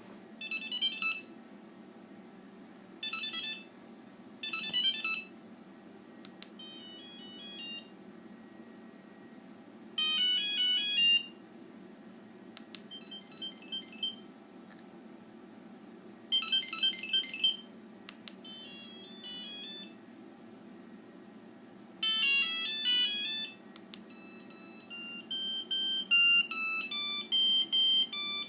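An NEC DB4000 mobile phone playing its built-in monophonic ringtones one after another: about nine short beeping melody snatches of a second or so each, with pauses between, then a longer tune from about 24 seconds in.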